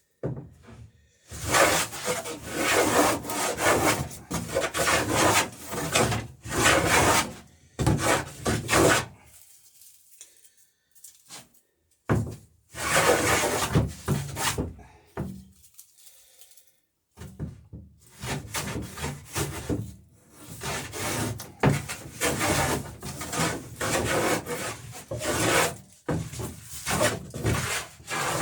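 Hand plane shaving the edge of a wooden dory plank in repeated strokes, cutting a bevel. There are short pauses about ten seconds in and again about sixteen seconds in.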